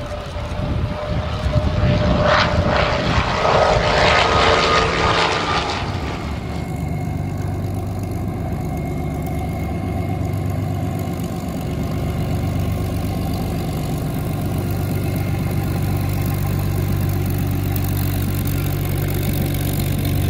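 Bell P-39Q Airacobra's Allison V-1710 V12 engine heard loud in flight as the fighter passes, growing louder and then easing. About six seconds in it cuts to the same engine running at low power as the plane taxis, a steady low drone.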